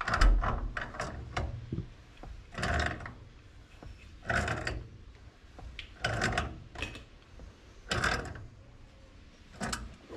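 Metal tools clicking and rattling against fittings in six short bursts, about every second and a half to two seconds, the loudest at the start, as a gas water heater's control valve and its gas connections are worked on.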